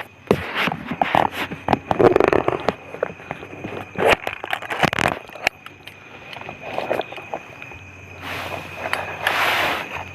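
Close handling noises: irregular scrapes, clicks and crackling rustles. Several longer hissing rustles come near the end.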